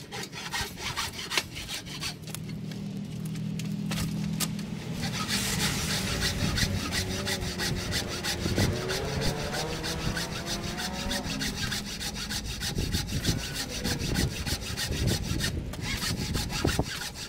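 A wooden-framed bow saw cutting through a wooden stick with steady back-and-forth strokes.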